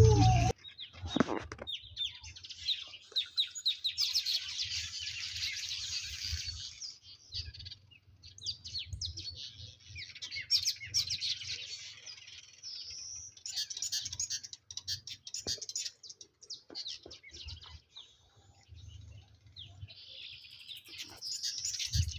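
Small birds chirping busily, many quick high calls in clusters with short lulls, over a low steady rumble.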